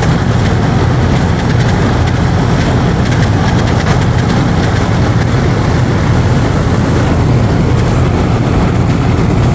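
Residential air-conditioning condenser unit running with its compressor and fan, a steady, unbroken mechanical hum.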